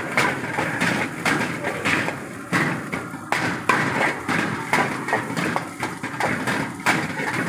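Steel ladle repeatedly scraping and clanking against a black iron wok while fried rice is stir-fried, in quick irregular strikes over a steady hiss.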